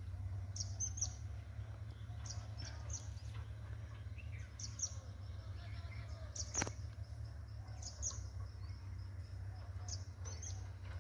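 Birds chirping, short high calls repeating every second or so, over a steady low rumble, with one sharp click about six and a half seconds in.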